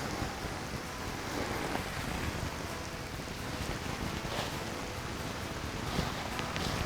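Steady wind rumbling on the microphone, with an even rain-like hiss.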